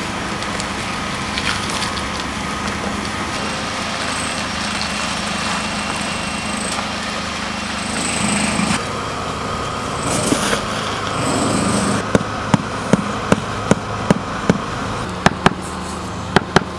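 A small engine runs steadily throughout. Over the last few seconds a paving block is tapped down into wet mortar, making a run of sharp knocks, about two a second.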